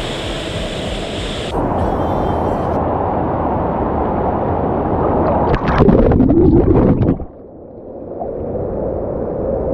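Monsoon-swollen rocky stream rushing over boulders, a steady noise of white water. A little past halfway it grows louder with some clattering for about a second and a half, then drops sharply and swells back.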